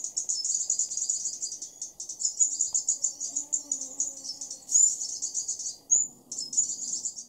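Insects trilling in the forest: a dense, fast-pulsing, high-pitched chorus with a couple of brief breaks.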